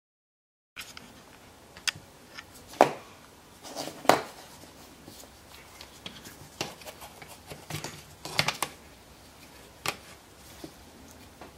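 Scattered clicks and light knocks from handling a rotary tool clamped in a wooden drill stand and setting a digital angle gauge against it, with the two sharpest knocks about three and four seconds in. The tool's motor is not running.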